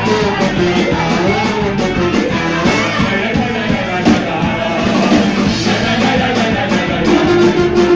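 Live Yiddish punk band playing loud and steady, with several male voices singing together over electric guitar, drums, trombone and accordion.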